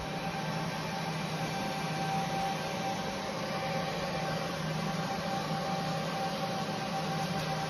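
Steady whir and hum of a running UV laser marking machine's cooling fan, with a thin steady whine through it.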